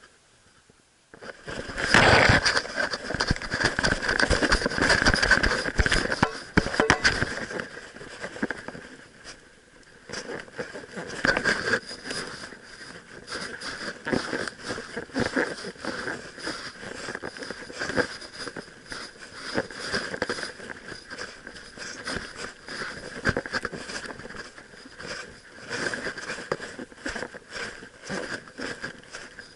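Crackling, rubbing and knocking of an action camera strapped to a puppy as the dog moves about, the mount and fur scraping against the housing. A faint steady high tone runs underneath; the noise starts after a near-silent first second and is loudest in the first few seconds.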